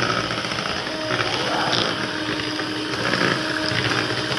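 Handheld electric mixer running steadily, its beaters whirring through cake batter in a bowl.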